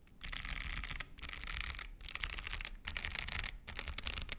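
Mechanical keyboard with clicky Kailh Box White switches being typed on very fast in five runs of dense clicking, each under a second long with short pauses between.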